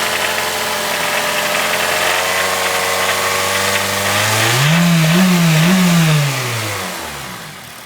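Honda K20A four-cylinder engine in an EP3 Civic running at a steady speed with a knocking that the owner cannot trace. About four and a half seconds in it is revved up twice in quick succession, then falls back, and the sound fades near the end.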